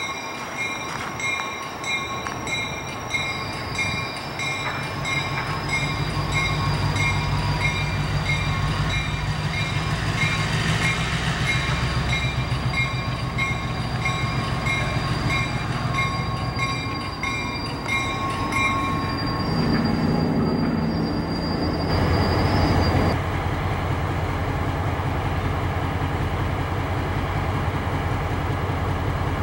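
Diesel switcher locomotive moving slowly, its bell ringing about twice a second over the low rumble of the engine. The bell stops about two-thirds of the way through, and the engine carries on with a steady low hum.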